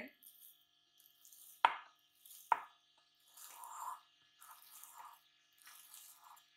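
Risen pizza dough being punched down and worked by hand in a glass bowl: two sharp knocks a little under a second apart, then soft squishing of the dough in short spells.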